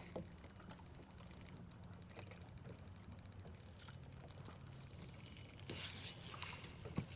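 Fishing reel working against a hooked bass, a fast, faint run of ratcheting ticks, with a brief louder hiss near the end.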